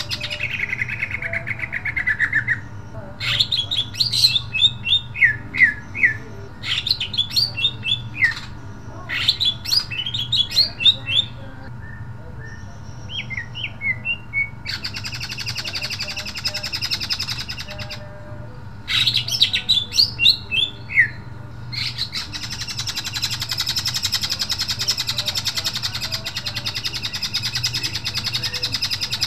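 Greater green leafbird (cucak ijo) singing loudly: volleys of rapid, sharp sweeping whistles alternate with longer stretches of dense, harsh chattering song.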